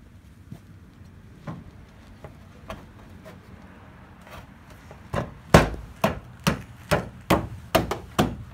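Sharp knocks, about two a second, begin about five seconds in after a few faint taps: a powder-coated tow hook being knocked into its mount under a pickup's front bumper, a tight fit because of the fresh powder coat.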